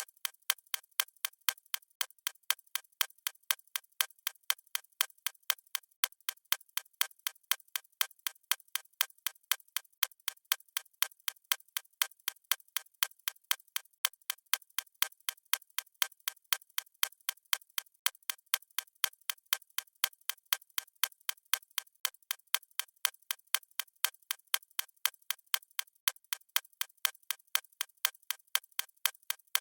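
Clock-ticking sound effect: sharp, evenly spaced ticks at a steady rate, the ticking track of a countdown timer.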